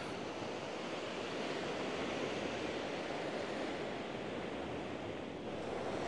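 Sea surf washing on the shore: a steady rush of waves.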